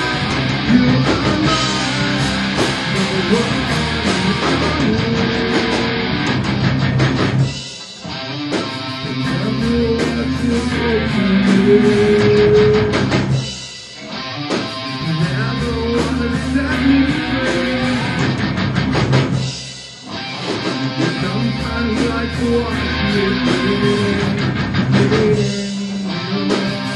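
Rock band practice recording: electric guitars and drum kit playing, with the music dropping away briefly about every six seconds (four short breaks).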